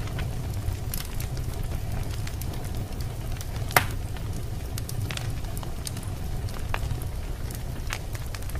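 Wood fire burning in a fireplace: a steady low rumble of the flames with scattered sharp crackles and pops, one louder pop a little before halfway through.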